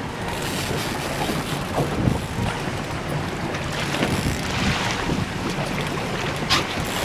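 Boat engine running low and steady, with wind buffeting the microphone and lake waves washing against the hull. A hooked lake trout splashes at the surface near the end.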